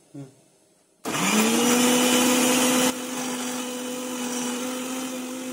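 Electric mixer grinder switched on about a second in, its motor spinning up to a steady hum while the blades grind a wet grated-coconut masala in the steel jar. The grinding noise drops a little about two seconds after starting as the motor keeps running.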